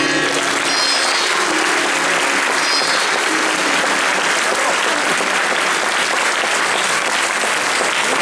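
Audience applauding steadily at the end of an Odissi dance, with the last notes of the accompanying music fading out in the first few seconds.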